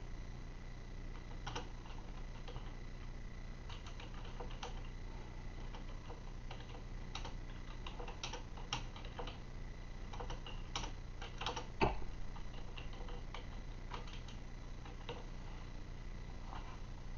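A series of soft, irregular clicks, roughly one a second, with one sharper, louder click about twelve seconds in.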